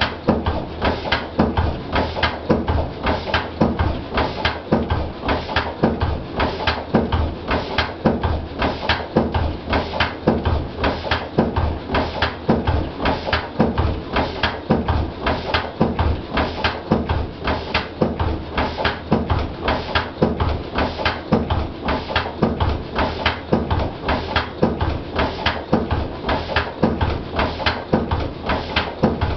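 Lister CS slow-speed stationary diesel engine running steadily, its firing strokes giving an even, rhythmic beat.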